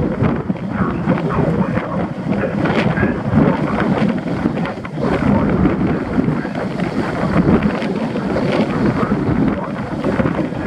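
Wind buffeting the microphone of a camera mounted on a moving car's roof, a loud, uneven rumble and hiss mixed with the car's road noise.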